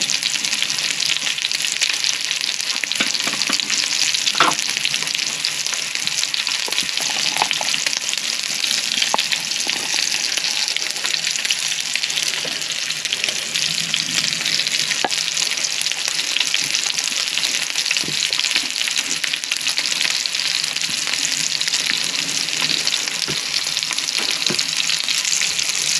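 Steak frying in a pan over a spirit burner, a steady crackling sizzle with a few separate pops.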